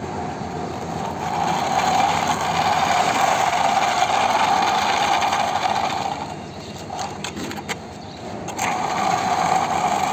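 Muddy plastic toy vehicles pushed by hand over gritty concrete: their wheels roll with a steady whirring grind. It breaks off for about two seconds past the middle, with a few clicks, then starts again.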